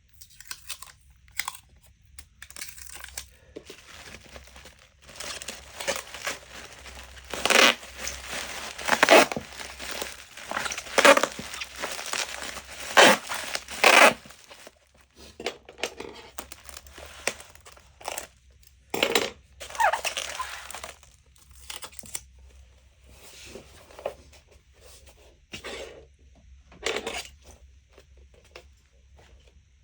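Irregular tearing and crinkling noises in a long run of sharp bursts, loudest in the middle and thinning out toward the end.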